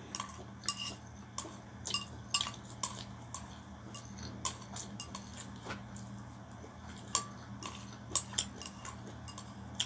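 Eating utensils tapping and clinking against a ceramic bowl in scattered sharp clicks, over a steady low hum.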